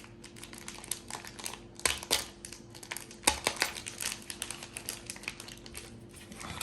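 Meat frying in hot oil in a pan: irregular crackling and sharp pops, a few louder than the rest, over a steady low hum.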